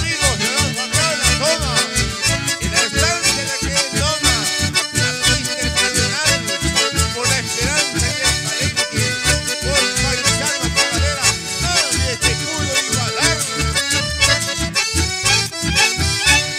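Live band playing, led by several button accordions, with guitar and a steady, even bass beat.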